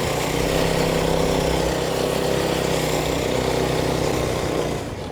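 Small engine of a motorized ride-on shop stool running at a steady speed, then dying away near the end.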